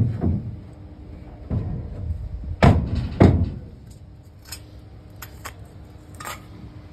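Several dull thumps, the two loudest about half a second apart some three seconds in, followed by a few lighter clicks.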